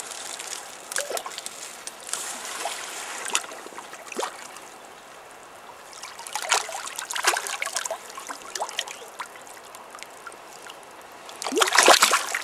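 Hooked trout thrashing and splashing at the water's surface close to the bank, in irregular bursts of splashing and sloshing, the loudest near the end.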